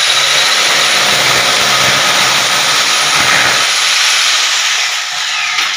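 Power drill boring a hole through the wall for an air conditioner's piping, running steadily at full speed with a high whine, then easing off and winding down near the end.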